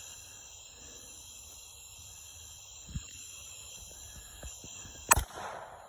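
Crickets chirring steadily; about five seconds in, a single shot from a suppressed .300 Blackout Sig MCX Rattler firing subsonic ammunition, a sharp crack with a short echo after it.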